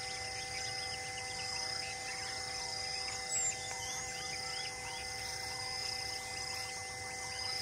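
Forest ambience: a steady drone of insects holding several even tones, with scattered bird chirps and one brief louder bird call about three seconds in.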